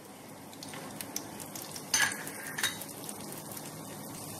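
Dried manathakkali (black nightshade) and sundakkai (turkey berry) vathal frying in hot sesame oil, a steady light crackle with a couple of sharper cracks about two seconds in.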